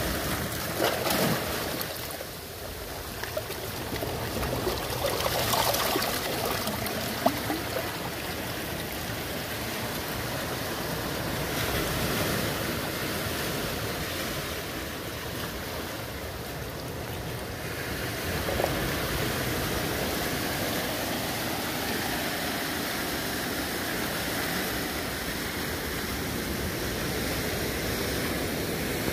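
Sea surf washing steadily against shoreline rocks, with a few brief knocks in the first several seconds.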